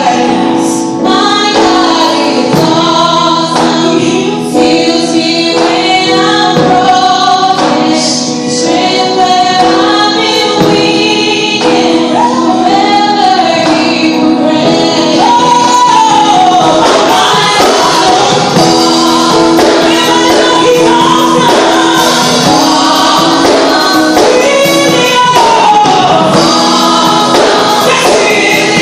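Live gospel singing: a woman's lead voice with a small group of backing singers joining in, over steadily held accompaniment chords.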